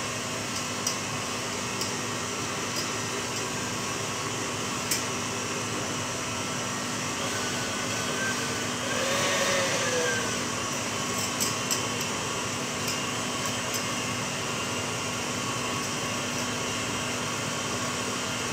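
A kitchen appliance running with a steady electric whir, with a few light clicks of a wire whisk stirring in a steel saucepan.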